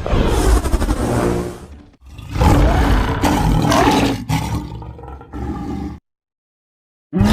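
Edited kaiju monster roar sound effects: a roar of about two seconds, then a longer roar that breaks up and stops about six seconds in, followed by a second of dead silence before the next sound starts.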